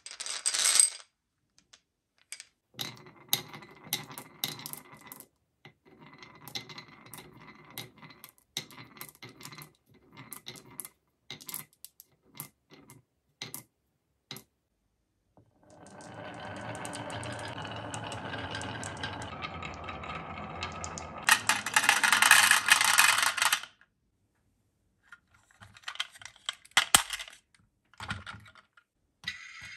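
Hard marbles clicking one by one as they are set into the grooves of a wooden wave-track marble run. About halfway through they roll down the wooden track together in a long, steady rumble, which turns into a loud clatter for about two seconds as they pour into the plastic bed of a toy dump truck. A few more separate clicks follow near the end.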